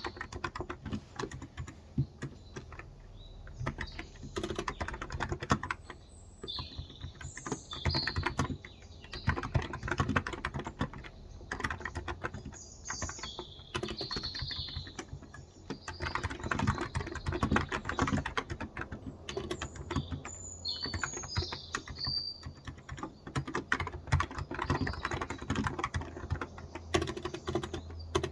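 Fast, uneven typing on a Cox Endeavor electrostatic-capacitive tenkeyless keyboard with 35 g switches, keystrokes clacking in runs with brief pauses. Birds chirp in short calls in the background.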